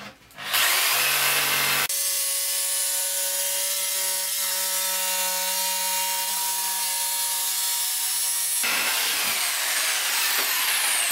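Corded electric jigsaw cutting through an MDF board. It starts about half a second in, runs steadily through the cut, and falls in pitch as it winds down near the end.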